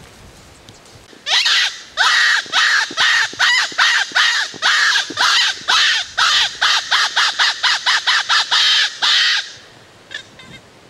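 Predator call for foxes, blown close by, giving a rabbit-distress squeal: about sixteen harsh, squealing notes at roughly two a second, each sliding down at its start, then stopping with a faint flutter near the end.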